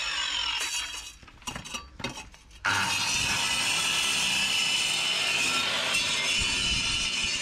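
Makita angle grinder with a cutting disc, cutting a concrete-encased drain pipe. It stops about a second in, leaving a gap of about two seconds with a few knocks. Then it starts again suddenly and runs steadily as it cuts.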